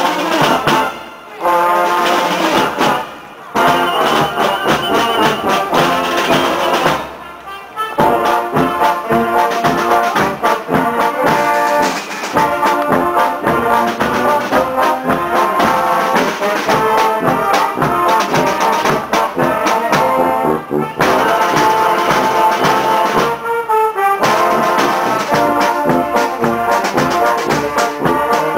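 Marching drum and brass band playing a march, led by trombones, baritones and sousaphones with drums keeping a steady beat. The playing breaks off briefly three times in the first eight seconds, then carries on without a break.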